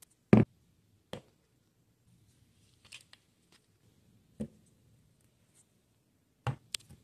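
Containers set down one by one on a wooden countertop: a heavy thunk as a large sugar canister lands, the loudest sound, followed by a few lighter knocks and a brief plastic crinkle, and a last knock near the end as a jar of Nutella is put down.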